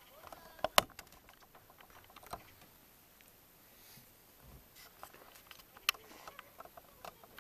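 Scattered small clicks and knocks of close handling, with two much sharper clicks, one about a second in and one near six seconds.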